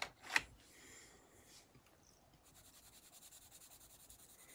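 A sharp click near the start, then an oil-based coloured pencil shading on sketchbook paper from about two and a half seconds in, faint, with quick, even back-and-forth strokes.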